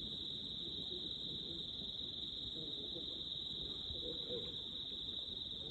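Night-time crickets chirring in one steady high-pitched drone that never lets up, over a faint low rumble.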